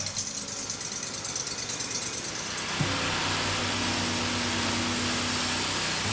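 A woodworking power tool running steadily with a loud rushing noise that swells to full strength about two seconds in, over quiet background music.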